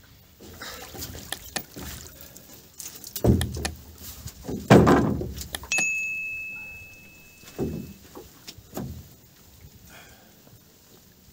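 Gill net being hauled hand over hand into a small boat: the wet net and its lines knock and thump against the hull. There are two heavier thumps about three and five seconds in, the second the loudest, and lighter knocks later. A steady high beep sounds from about six to eight seconds.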